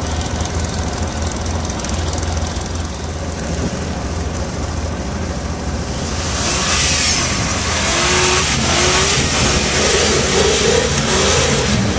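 A 4x4 truck's engine running steadily, then about halfway through it revs harder, with a louder rushing hiss and a wavering, rising whine that continues to the end.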